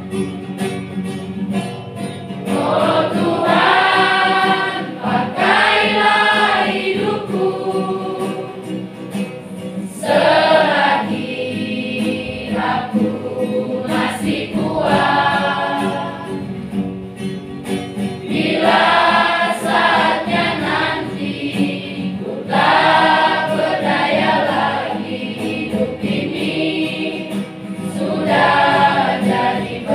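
Children's and youth church choir singing a hymn together, in phrases that swell and fall back.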